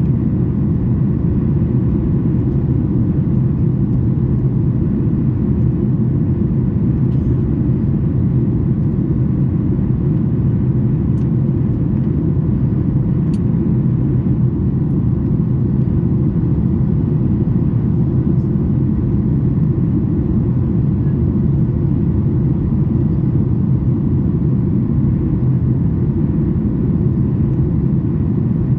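Steady cabin roar of a Boeing 737 MAX 8 in its climb after takeoff, heard from a seat by the wing: the CFM LEAP-1B engines and the rushing air make an even, deep noise with faint steady tones above it.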